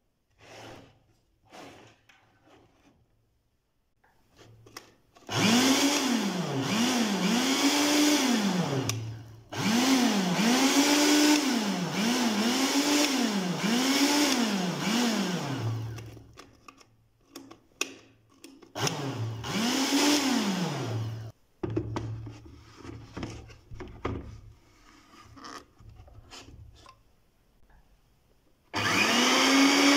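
Restored electric blender motor switched on and off over and over from its push-button selector, with no jar fitted. Its pitch rises as it spins up and falls as it coasts down, about once a second, in two long runs and a shorter one, with light knocks between. Near the end it starts again with the jar on.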